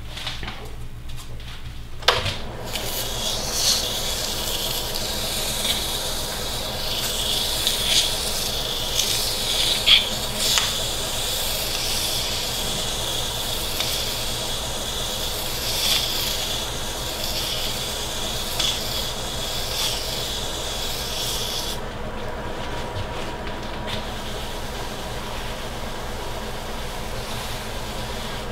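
Fine 600-grit sandpaper rubbing against a maple burl sphere spinning on a wood lathe: a steady hiss that starts with a click about two seconds in and stops about twenty seconds later, over the lathe motor's low steady hum.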